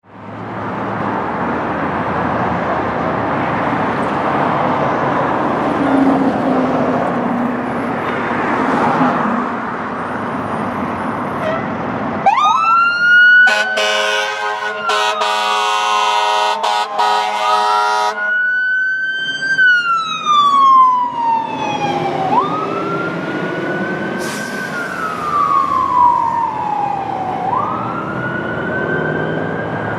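A fire engine's engine runs steadily. About twelve seconds in, its siren starts wailing, rising quickly and falling slowly in repeated cycles. Over the first cycles come several loud air horn blasts that cut off sharply.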